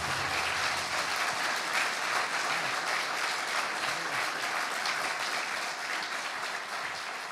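Audience applauding at the end of a song, a steady clapping that begins to taper off near the end.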